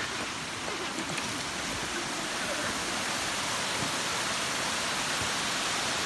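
Steady rush of a rocky forest creek's water flowing over stones and logs.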